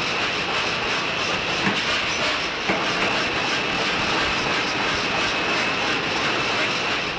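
Steady, dense machinery din of a drop-forge shop, with a high whine running through it and a couple of faint knocks about two and three seconds in. It cuts off abruptly at the end.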